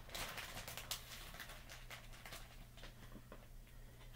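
Plastic bag crinkling and rustling as it is handled, busiest in the first second, then fainter scattered rustles and ticks.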